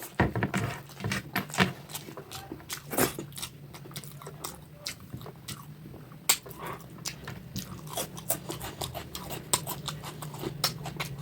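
Close-up mouth sounds of a person eating rohu fish curry with rice: chewing with a dense, irregular run of small wet clicks and smacks, a few of them louder.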